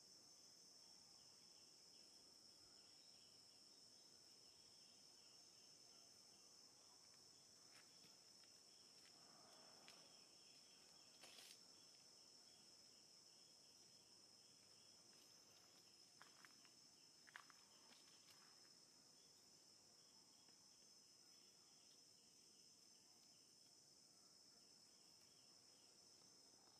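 Faint insect chorus: a steady high-pitched drone with a fast pulsing chirp beneath it, and a few faint clicks midway.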